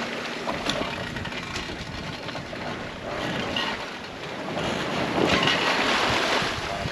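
Wind and sea water rushing past a sailboat under way, with wind buffeting the microphone; the rush swells louder about five seconds in.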